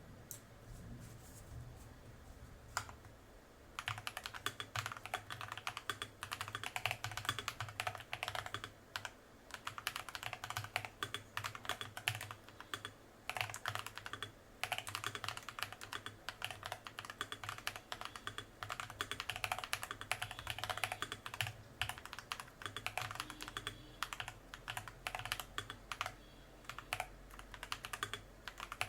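Fast typing on a Hybreed TKL 87-key custom mechanical keyboard with TTC long pole tactile switches and Cherry-profile PC and ABS double-shot keycaps. A few single keystrokes come first, then a dense run of keystrokes starts about four seconds in, broken by a couple of short pauses.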